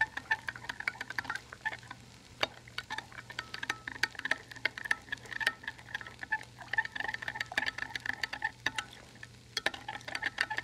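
A metal spoon stirring peanut butter and water in a glass measuring jug, clinking irregularly against the glass many times, over a steady low hum.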